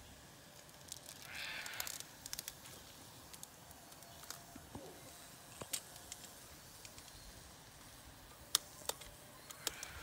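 Faint scattered clicks and a short scrape about a second and a half in, from a hive tool and gloved hands working at the entrance of a wooden bee transport box.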